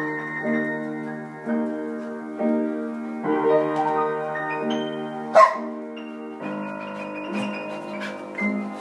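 Upright piano being played, a steady run of notes and chords. About halfway through, a Lab–Chow mix dog gives one short, loud bark over the playing.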